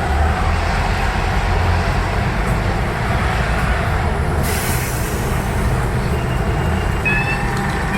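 Train at a station platform: a steady low rumble, then a sudden hiss about halfway through that slowly fades. Near the end come high whines that rise in pitch in repeated steps.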